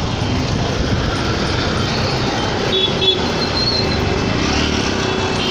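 Busy city road traffic: a steady din of car and auto-rickshaw engines and tyres passing close by, with a few brief high-pitched tones about halfway through.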